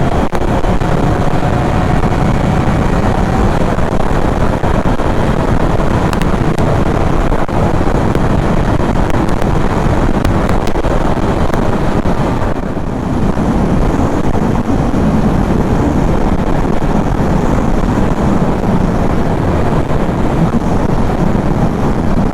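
Motorcycle riding at speed: the engine runs steadily under a heavy rush of wind on the rider's microphone.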